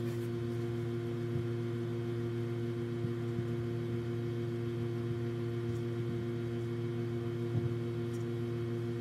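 Steady, low droning hum made of several held tones, with a few faint soft knocks.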